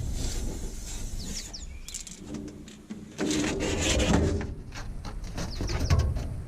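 Birds chirping in short high calls, with scattered knocks and handling noise.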